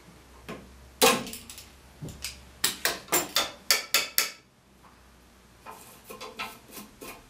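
Sharp metallic clinks of a glue brush knocking against the rim of a metal glue can, about eight in quick succession in the middle. Fainter wooden clicks from the chair's spindles being handled follow near the end.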